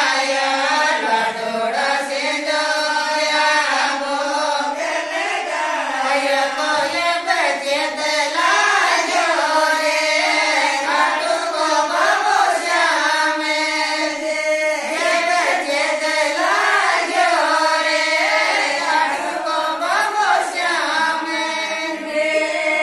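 Group of women singing a desi wedding folk song (vivah geet, a samdhi-samdhan song teasing the in-laws) together, one continuous sung melody with no break.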